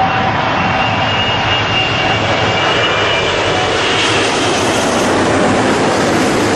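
Airbus A380 airliner's four jet engines passing low on final approach: a loud, steady rush of engine noise with a faint high whine that fades out about halfway through.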